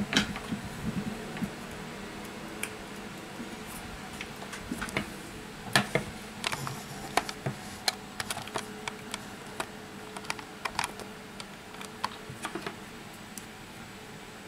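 Irregular small clicks and taps of hands handling an opened phone and small tools on a wooden workbench, the loudest cluster about six seconds in, over a faint steady hum.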